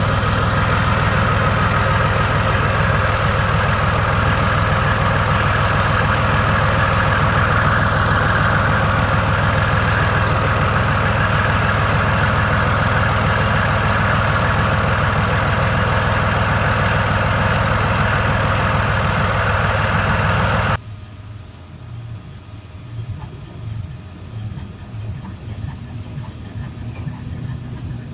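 Leopard tank's diesel engine running loud and steady with a deep, even pulse. About twenty-one seconds in it cuts off suddenly, and a GE U23B diesel-electric locomotive engine takes over, much quieter, with an uneven low rumble.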